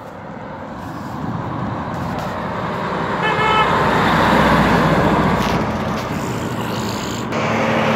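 A Freightliner Cascadia semi truck pulling a trailer drives past close by, its engine and tyres growing louder to a peak about four to five seconds in, then easing as it moves away. A short horn toot sounds about three seconds in.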